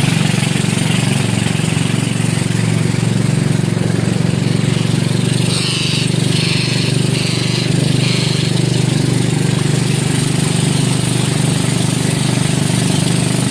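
A motor engine running steadily at a constant speed with a low, even drone. About halfway through, four short high-pitched chirps sound over it.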